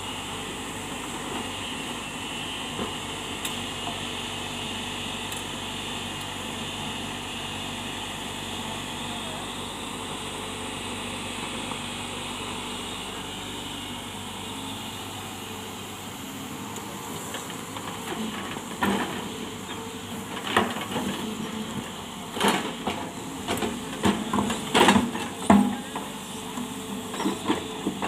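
SANY crawler excavator's diesel engine running steadily, joined from about two-thirds of the way through by a series of sharp knocks and clatters as the bucket works rocks and stony earth.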